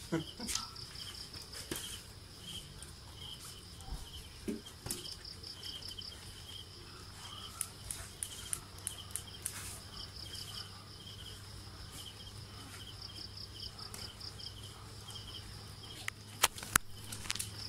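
Insects chirping in steady rhythmic pulsed trills at two high pitches, with scattered sharp clicks and taps, the two loudest near the end.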